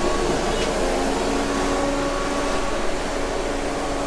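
2022 DAF XF 480 lorry's PACCAR MX-13 six-cylinder diesel engine running steadily: an even hum with a few held tones.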